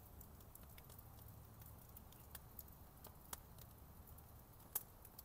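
Near silence, with faint scattered clicks and a sharper click near the end.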